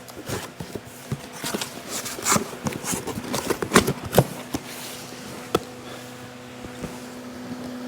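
Boxes and packaging being handled: a string of rustles, taps and light knocks for about five seconds, then only the steady hum of a shop fan.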